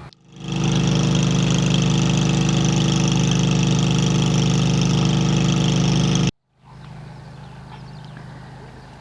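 A steady-running engine with a high whine over a low drone, cut off abruptly about six seconds in, then heard again more quietly.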